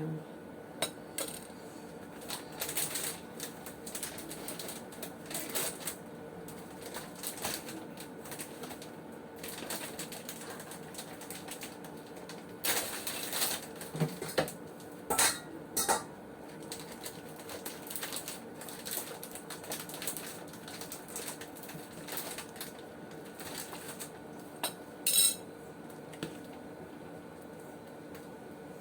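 A cooking utensil clinks, knocks and scrapes against a pot in irregular bursts, the kind of sound made while stirring a simmering stew. The busiest stretch comes about halfway through, and there is one sharp clink near the end.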